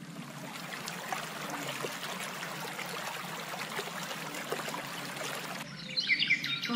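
Shallow stream flowing and trickling, a steady water sound with small splashes. Near the end it cuts off abruptly and birds start chirping.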